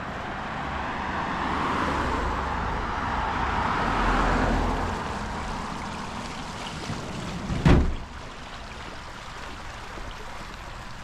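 A car passes by, its noise swelling and fading over the first few seconds, followed by a single loud thump a little past the middle.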